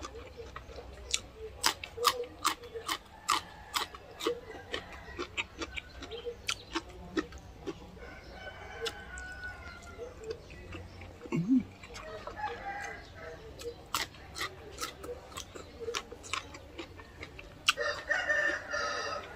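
Close eating sounds, irregular wet clicks and lip-smacks of someone chewing noodles and fresh vegetables, with a rooster crowing in the background, the longest and loudest crow near the end.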